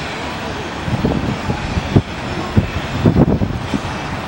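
Cessna Citation Excel business jet's rear-mounted turbofans giving a steady rushing noise as it rolls along the runway, with gusts of wind buffeting the microphone in short low thumps.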